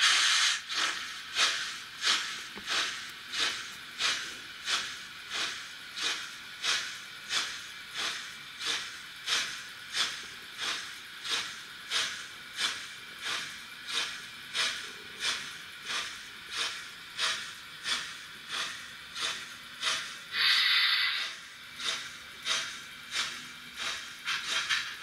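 Sound decoder of a Trix 22960 BR 96 Mallet model steam locomotive playing steam-exhaust chuffs, evenly spaced at about two a second, with a longer hiss of steam about 20 seconds in.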